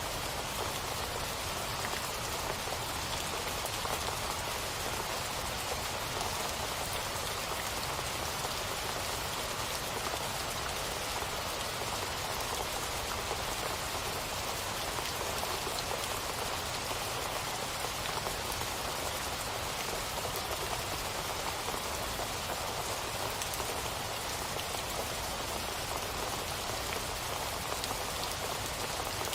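Steady rain falling, an even, unbroken hiss of many drops that holds at one level throughout.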